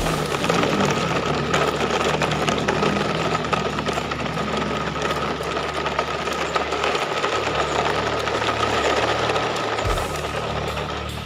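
A small electric toy motor whirring steadily with a dense rattle and a steady high whine, easing off slightly near the end.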